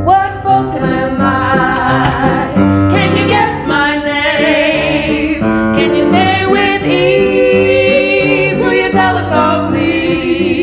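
Music with singing, one voice moving through a melody and holding a wavering note about four seconds in.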